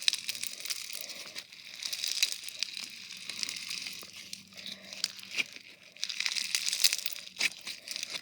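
Bingsu slime squeezed and worked by hand, its beads giving a dense stream of small crunchy crackles and pops.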